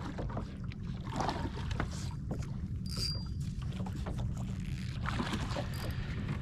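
Water lapping against the hull of a small anchored boat, with scattered light clicks and knocks.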